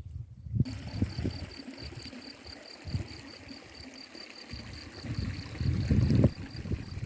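Outdoor ambience starting abruptly about half a second in: wind buffeting the microphone in uneven gusts over the rush of a stream, with a thin, high chirp repeating rapidly and evenly throughout.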